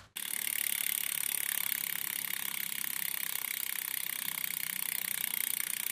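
Mountain bike freewheel ratcheting steadily as the rear wheel spins, a fast, even run of clicks that starts abruptly.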